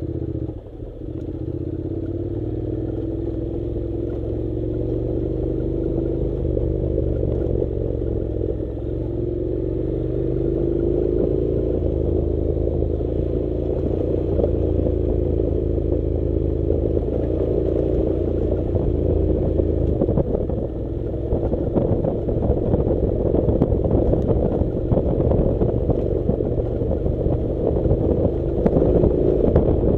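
Honda NC700's parallel-twin engine running at low, fairly steady revs while the motorcycle rides over a rough gravel dirt track, with clatter from stones and the bike's body, growing gradually louder as the ride goes on.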